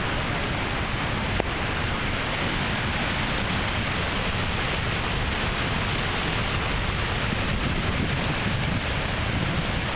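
Rain-swollen storm runoff rushing and churning through a washed-out road cut, a steady rush of floodwater.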